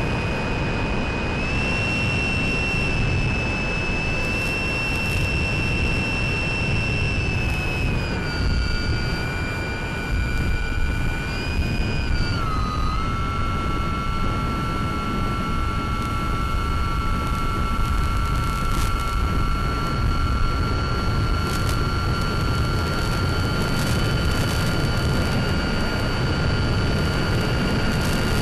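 Brushless electric motor and propeller of a Mini Talon FPV plane (SunnySky 1240kv motor, 8x6 prop) running in flight: a steady whine over a heavy rush of wind. The whine steps lower about eight seconds in and again about twelve seconds in as the throttle is eased back.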